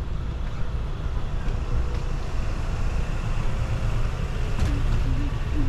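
Road traffic outdoors: cars passing, heard as a steady low rumble.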